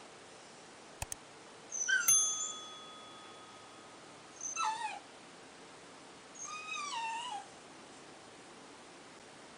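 Dog whimpering: three separate high-pitched whines that slide down in pitch, about two, four and a half and seven seconds in. The first is the loudest and trails off in a thin held tone. Two short clicks come about a second in.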